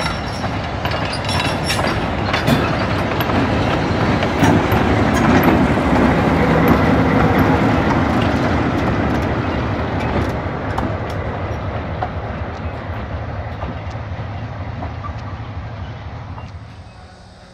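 Milwaukee Road EMD NW2 switcher's V12 two-stroke 567 diesel engine running as the locomotive and a caboose pass close by, with wheels clicking over the rail joints. It is loudest about halfway through, then fades steadily as the train moves away.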